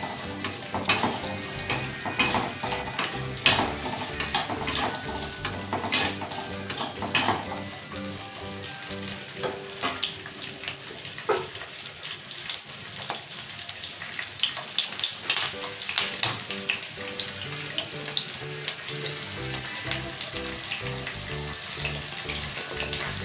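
Sliced onions sizzling in oil in a kadai while a spatula stirs them, with sharp clacks of the spatula against the pan, most frequent in the first third. Soft background music with a stepping melody plays underneath.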